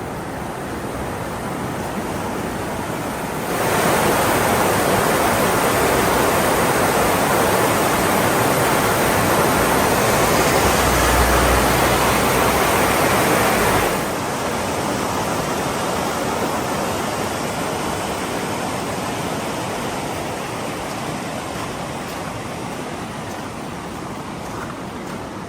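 Steady rushing noise, such as wind or water, with no tone or rhythm in it. It jumps louder abruptly about three and a half seconds in, drops back just as suddenly around the middle, then slowly eases off.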